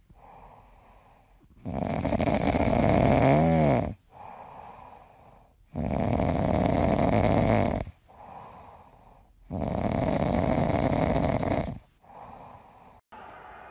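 Grey cat snoring in its sleep: three loud, rasping snores of about two seconds each as it breathes in, with quieter breaths out between them.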